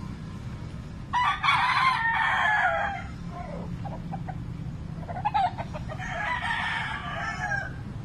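Roosters crowing twice, each crow lasting about two seconds: one about a second in and another about five seconds in, over a steady low background rumble.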